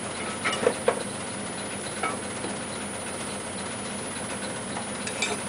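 Wood lathe running steadily, spinning an off-center goblet blank mounted on an off-center chuck, with a steady motor hum. A few brief clicks come about half a second to a second in, again at about two seconds, and near the end.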